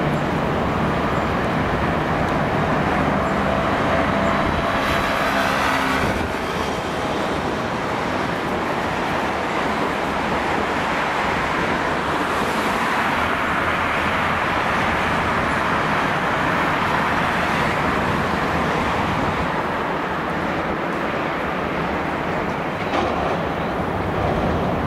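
City street traffic with a W-class tram running on its rails, a steady rolling rumble, with a brief whine about five seconds in.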